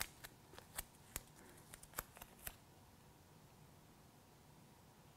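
Faint ticks and crackles of duct tape being handled and pressed down by hand onto the masked mold block, a scattered run of small clicks over about the first two and a half seconds.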